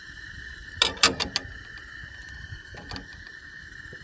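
A quick cluster of sharp clicks and knocks about a second in, and a fainter pair near three seconds: cooking utensils knocking against a board or pan. A steady high hiss runs underneath.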